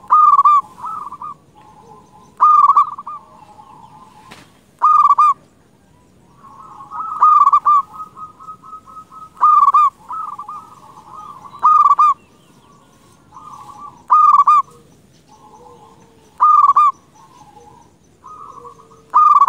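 Zebra dove (perkutut) singing in full voice: a loud clipped coo phrase about every two and a half seconds, with softer rolling coos in between.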